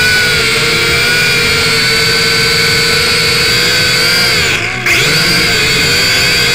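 Small drone's electric motors and propellers whining steadily. A little past halfway the whine sags in pitch and briefly cuts out, then rises back to the same note.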